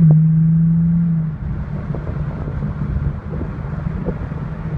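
Muffler-deleted Lexus GS300 inline-six exhaust heard from inside the cabin: a loud steady drone for about the first second, then it drops away to a quieter, uneven low rumble.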